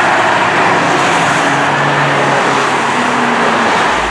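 Road traffic on a multi-lane highway: cars and SUVs driving past with steady tyre and engine noise.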